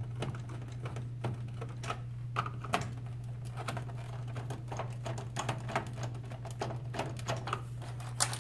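Hand screwdriver backing screws out of a plastic computer keyboard case: a run of small, irregular clicks and ticks, a little louder near the end as the case is handled, over a steady low hum.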